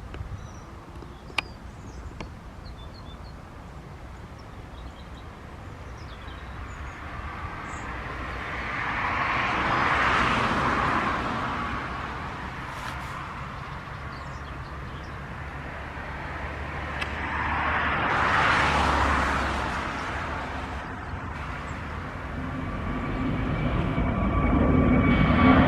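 Two passing vehicles, each swelling and fading over about four seconds. Then a jet airliner's engines build steadily toward the end with a steady whine: the Airbus A321neo drawing near.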